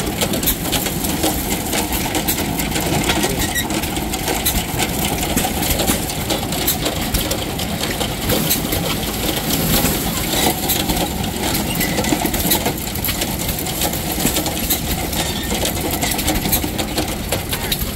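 Vintage John Deere corn sheller running steadily, its chain drive and workings clattering while shelled kernels rattle out of the spout into a cloth bag.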